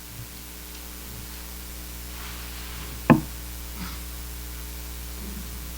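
A single sharp knock about three seconds in, over a steady electrical hum and faint hiss.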